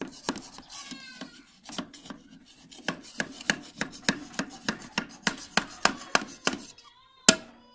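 Long steel spoon knocking and scraping against a large aluminium cooking pot while cooked rice is turned over, a fast run of knocks about three or four a second, with one loud clank near the end.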